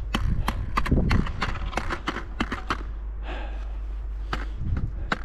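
Hiking boots without ice spikes stepping on an icy, frozen trail: a quick run of sharp crunching steps for about three seconds, then two more steps after a pause.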